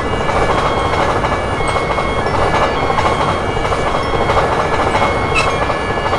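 A train running past with a steady, loud rush of wheel and rail noise.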